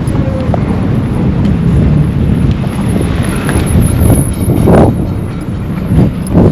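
Wind buffeting the microphone: a loud, steady low rumble, with two stronger gusts near the end.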